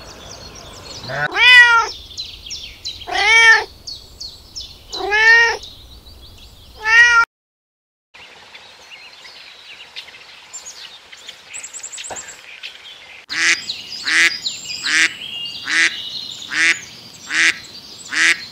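Four drawn-out animal calls, each rising and falling in pitch, about two seconds apart. After a break, a mallard duck quacking in a steady series, roughly one quack every 0.7 seconds.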